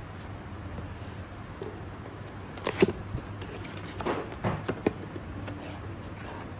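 Packaging and parts being handled while a kit is unboxed: a few short clicks and rustles, the loudest near the middle, followed by a cluster of several more about a second later, over a low steady hum.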